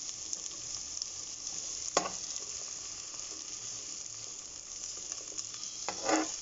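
Sliced onion sizzling in hot oil in a stainless steel pot, a steady high hiss. There is a single sharp click about two seconds in, and near the end a metal spoon stirs, scraping and knocking against the pot.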